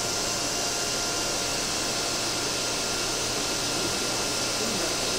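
Aquarium pumps and filter running: a steady hiss with a faint high-pitched hum running through it.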